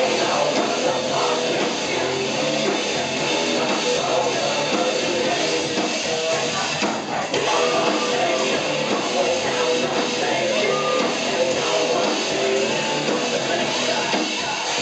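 Rock band playing live, loud and dense, heard from among the crowd: drums, electric guitar and singing.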